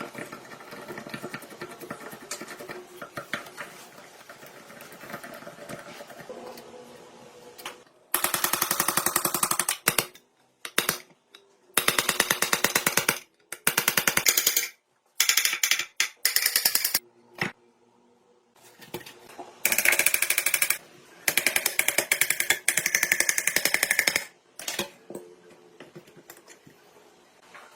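A fast-reciprocating workshop machine rapping at a very rapid, even rate in repeated bursts of one to two seconds, started and stopped about eight times. Before the bursts there is a quieter steady background with scattered clicks.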